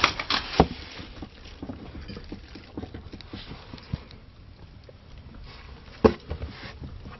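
Irregular creaks, clicks and small rattles of a building and loose objects shaking in an earthquake aftershock, with two louder knocks, one about half a second in and one about six seconds in.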